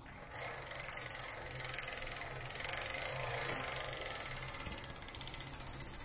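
Rear wheel of an electric bicycle spinning freely, its freewheel pawls clicking in a rapid, even ratchet. The clicking starts suddenly just after the start.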